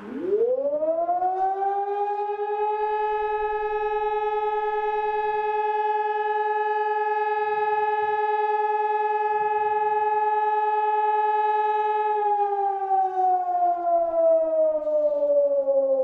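Electronic alarm siren with stacked horn loudspeakers sounding the fire brigade call-out alarm. Its wail rises over about two seconds, holds one steady tone for about ten seconds, then starts to fall about twelve seconds in.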